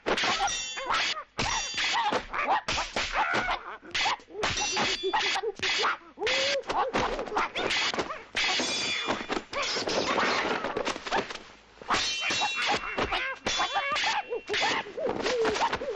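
Dubbed kung fu fight sound effects: a fast, irregular run of punch and kick thwacks and swishing whooshes, with metallic clangs among them.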